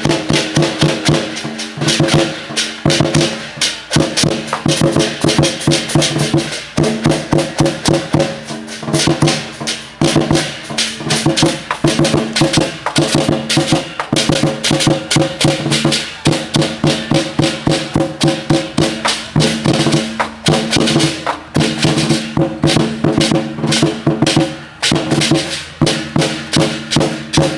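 Temple procession music: loud, fast percussion with rapid sharp strokes over a few steady held pitched tones.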